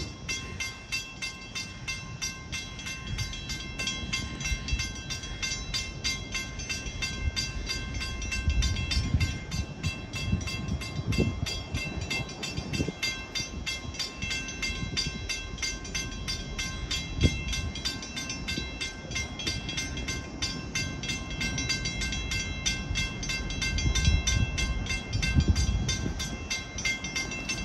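Grade crossing bells ringing fast and steadily, over the low rumble of an approaching train that swells now and then.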